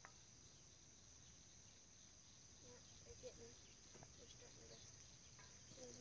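Near silence: a faint, steady, high-pitched insect chorus trilling outdoors, with a few faint clicks.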